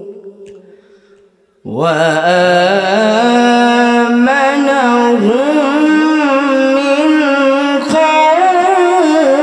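A man's voice chants Quran recitation (tilawat) in a melodic tajweed style, amplified through a microphone. The last phrase's echo dies away, and about a second and a half in he begins a long held vowel with wavering, ornamented pitch that rises and falls.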